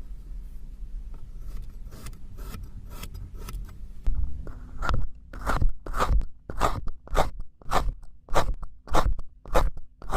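Rhythmic crunching, scraping strokes at about two a second. They are faint at first and become much louder about four seconds in.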